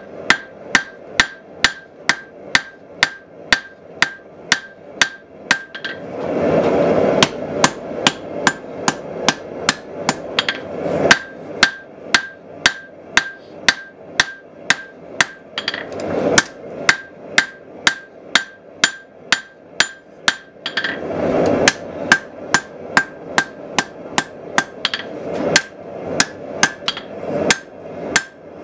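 Hand hammer striking a hot steel knife blade on an anvil, about three blows a second with a few short pauses, each blow giving a short metallic ring. The blade is being forged out to shape.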